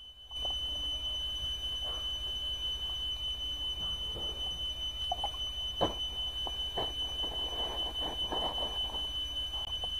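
A steady high-pitched whine starts just after the beginning and holds at one pitch, over soft rustling and a few light knocks as wet clothes are handled and hung on a bamboo pole.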